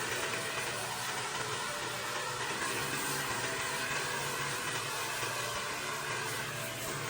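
Pressure washer running steadily: an engine hum under an even hiss of spraying water.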